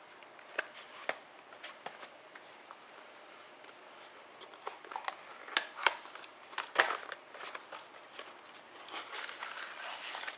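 Cardboard and paper packaging handled by hand: a folded white cardboard insert lifted out of a tablet box and opened, with scattered taps, clicks and paper rustles that are busiest in the middle and again near the end.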